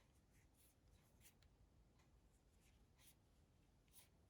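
Near silence: room tone with a few faint, light ticks and rubs from small phone parts being handled.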